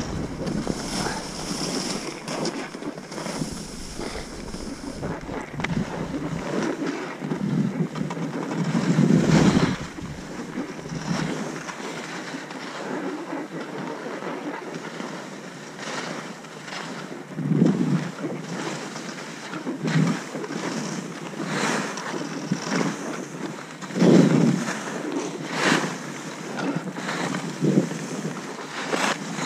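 Skis hissing and scraping over snow during a downhill run, swelling in short surges with each turn, mixed with wind rushing over the microphone.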